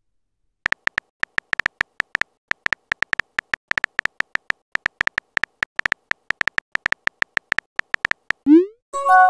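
Simulated phone-keyboard clicks of a message being typed in a texting app: short, sharp ticks at an uneven rate of several a second. Near the end a quick rising swoosh marks the message being sent, followed by the start of an electronic chime.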